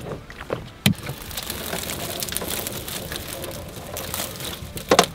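Water streaming and dripping out of a wire-mesh baitfish trap as it is hauled up from the water onto the boat, a patter of many small drops. There is a sharp knock about a second in and another near the end as the trap meets the boat.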